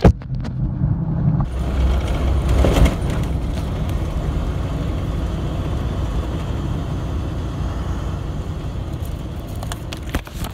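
Converted school bus (skoolie) running, with a steady engine and road noise.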